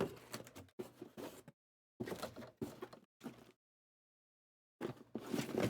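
Cardboard trading-card boxes being handled: short rustling and scraping sounds, four in the first three and a half seconds and another near the end, with dead silence between.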